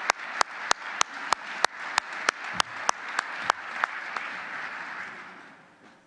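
Audience applauding, with one pair of hands clapping loudly at an even beat, about three claps a second. The clapping stops about four seconds in and the applause dies away near the end.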